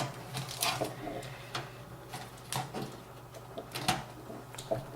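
Computer hardware being handled in and around a PC case: a few short, irregular clicks and light knocks of plastic and metal parts.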